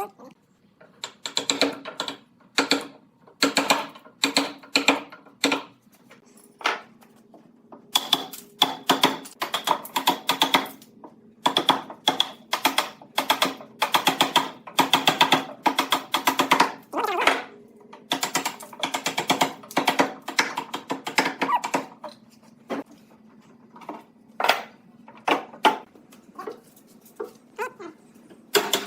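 Rapid clusters of sharp taps and knocks, coming in quick runs with short pauses, over a faint steady hum.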